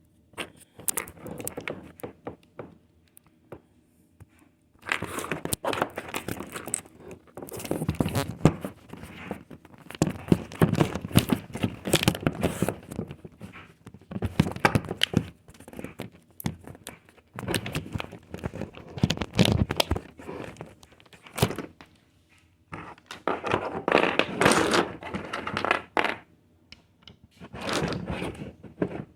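Loose plastic Lego pieces being handled, clicking and clattering in irregular bursts separated by short pauses.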